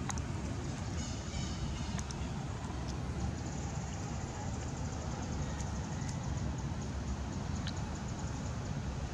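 Steady low rumble of wind on the microphone outdoors, with a few faint clicks.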